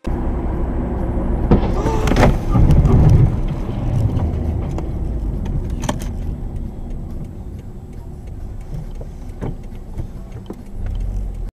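Car road noise inside the cabin, with a louder burst of rumbling and several sharp knocks about two seconds in, then single knocks now and then.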